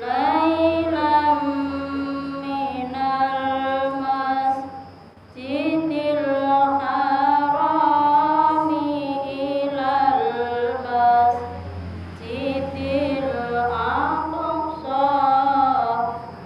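A woman reciting verses of the Quran in the melodic chanted style, with long held, wavering notes. She sings three long phrases with brief pauses for breath between them.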